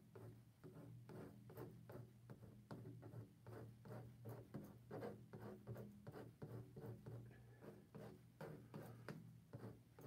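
Faint, repeated short scrapes of a metal palette knife spreading acrylic paint across a stretched canvas, several strokes a second, over a low steady hum.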